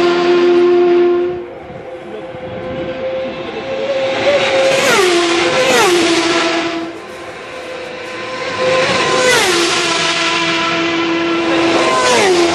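Superbike racing motorcycles passing flat-out at close to 200 mph, one after another. Each engine note is high and steady as the bike approaches, drops steeply in pitch as it flashes past, then fades away. One bike dies away about a second and a half in, and three more go by roughly four seconds apart.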